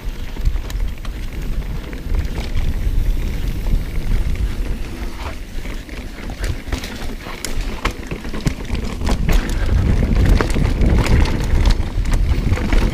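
Mountain bike riding downhill on a rough trail: wind noise on the microphone with the tyres running over dirt and rocks, and the bike rattling in frequent sharp clicks and knocks. It grows louder about two-thirds of the way through.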